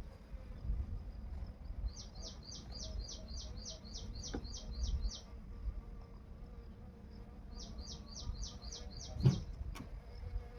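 A bird calling in two runs of quick repeated high chirps, about four a second, over a low rumble. Two sharp knocks come near the end.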